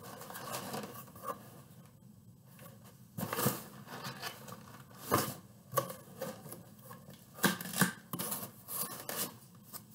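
Cardboard shipping box being handled and turned over: irregular rustling, scraping and sharp knocks of the cardboard, the loudest about three and a half, five and seven and a half seconds in.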